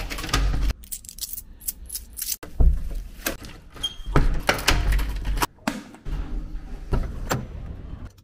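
A door being worked by its lever handle: latch clicks and a series of knocks and thuds as it is opened and shut, the loudest thuds about two and a half and four seconds in.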